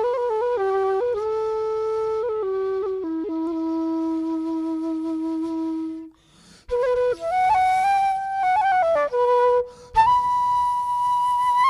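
Background music: a slow solo wind-instrument melody, flute-like, playing one line of held notes. A long low note fades out about six seconds in, and after a short pause the tune picks up again.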